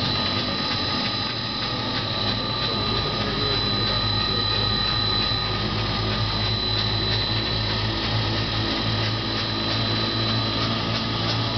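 Nonwoven cloth rewinding and slitting machine running steadily as fabric winds through its rollers: an even machine sound with a constant high whine, a low hum and faint ticking.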